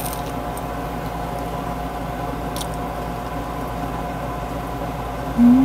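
Air conditioner running inside a closed car with a steady hum and two steady tones, with a couple of faint clicks. Near the end a short, louder hummed 'mm' breaks in over it.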